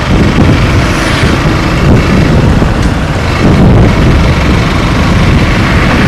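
Motorcycle riding along a road: steady engine and road noise, with wind buffeting the camera microphone in uneven surges.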